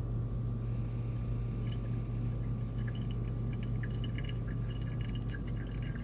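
Thin stream of water from a gooseneck kettle pouring onto coffee grounds in a paper pour-over filter, with light splashing and dripping into the brewer, over a steady low hum.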